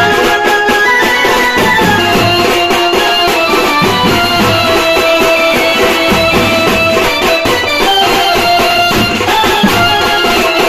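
Loud band music: a melody of held notes stepping up and down over a steady drum beat.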